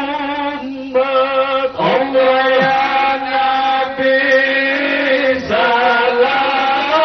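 A man chanting Islamic dhikr into a microphone, amplified, in long drawn-out melodic phrases with short breaks between them.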